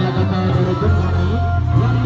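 Loud amplified band music with long held bass notes and a wavering melody over them, the accompaniment of an Indramayu reog troupe.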